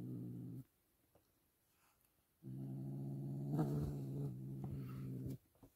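Kitten growling low and steadily through a piece of raw meat held in its mouth, guarding the food. Two long growls with a pause of about two seconds between them; the second rises briefly in pitch partway through.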